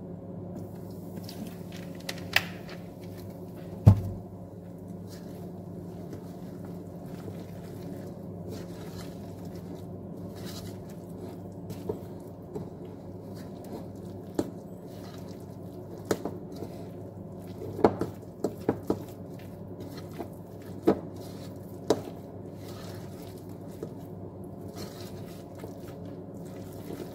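Fork stirring a thick, wet cauliflower fritter batter in a ceramic bowl, with scattered clicks as the fork knocks against the bowl, over a steady low hum. One louder thump about four seconds in.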